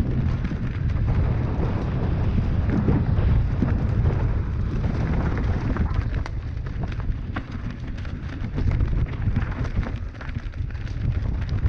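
Mountain bike riding fast down a rough dirt trail, heard from a camera on the bike or rider: a steady wind rumble on the microphone over tyre noise on dirt and leaf litter, with frequent sharp knocks and rattles from the bike hitting roots and rocks.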